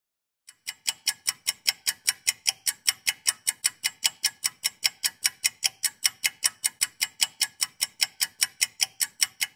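Clock ticking steadily and quickly, about five ticks a second; it starts about half a second in.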